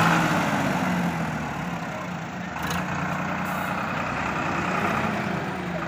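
Tractor's diesel engine running steadily under heavy load while it tows a truck stuck in mud by a rope, with a brief sharp click about halfway through.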